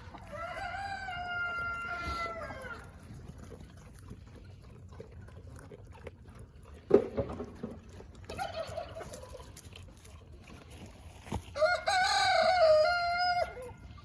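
A rooster crowing twice, each crow a long call of two to three seconds, with a fainter, shorter call between them. A single sharp knock about halfway through.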